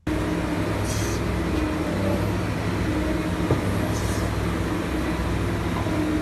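An engine running steadily with a low drone, with short hissy bursts about a second in and again about four seconds in.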